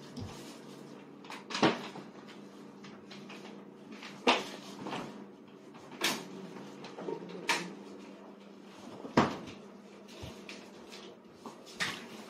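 Light clicks and knocks of tableware at a meal: training chopsticks and plastic dishes, about six sharp taps a second or two apart, over a steady low hum.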